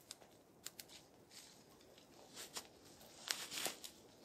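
Small twig fire catching, with scattered sharp crackles and snaps as the kindling starts to burn, and a louder cluster of crackles about three seconds in.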